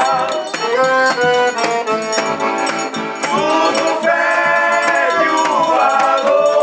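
A small folk band plays a melody on accordion and wooden fife over regular beats of a large bass drum.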